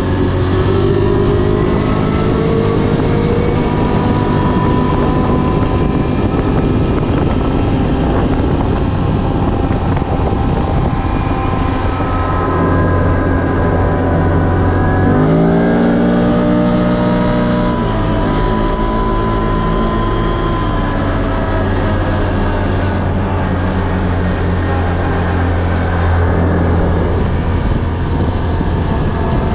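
ATV engine running under way, its pitch shifting with the throttle. About halfway through it revs up sharply, then eases back down a few seconds later.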